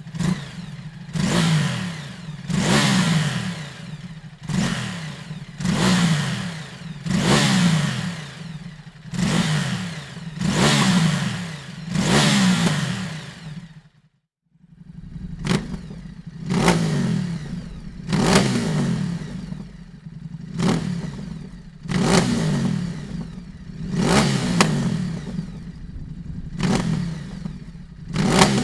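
Ducati Multistrada 950S's L-twin engine through an aftermarket Dominator exhaust, revved again and again, each rev rising and falling about every second and a half. About halfway through it cuts out, and a second run of sharper, shorter throttle blips follows.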